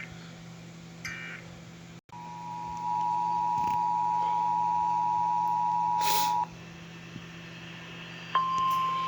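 Emergency Alert System signalling: a short screechy data burst about a second in, then after an abrupt cut the EAS two-tone attention signal sounds steadily for about four seconds and stops. Near the end a single steady 1050 Hz NOAA Weather Radio alert tone comes on, announcing the next warning.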